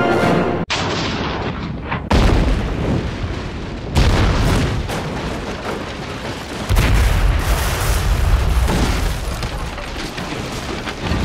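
Three large explosions of a building blowing apart, the first about two seconds in, then about two seconds later and again nearly three seconds after that. Each is a sudden blast that trails off into a long rumble.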